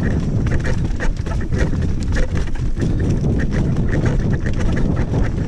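Mountain bike rattling and clattering down a dirt singletrack at speed: knocks and ticks from the bike over the bumps, tyres on the dirt, over a steady low rumble.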